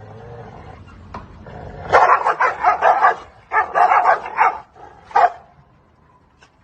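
A dog growling low, then barking in two fast runs of short barks, with one last bark a little after that.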